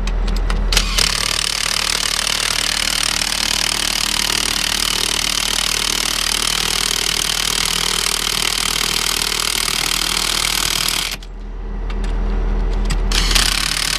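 Impact wrench hammering on the combine's wheel nuts in two long runs, stopping briefly about eleven seconds in. An engine idles underneath.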